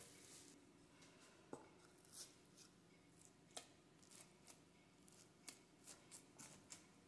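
A wooden slotted spatula cutting into baked oatmeal in a glass baking dish, making faint, irregular clicks and taps as it strikes the glass, about a dozen over several seconds.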